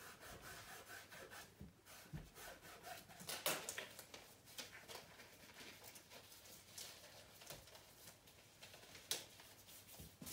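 Faint rubbing and scratching of paintbrushes on canvas, with scattered light taps and clicks from things handled on the table.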